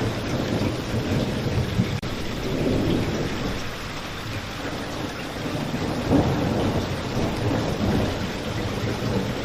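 Steady rain falling, with low thunder rumbling under it that swells about a third of the way in and again a little past the middle.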